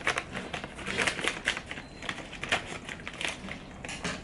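Packet of grated parmesan crinkling as it is handled, with many irregular crackles.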